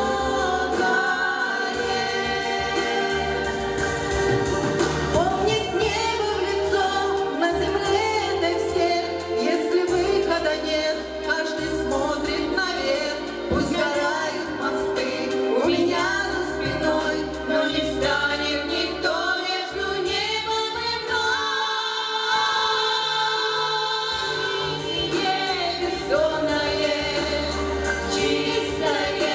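Female vocal quartet singing together through handheld microphones in sustained, gliding harmony over an instrumental accompaniment with a steady bass.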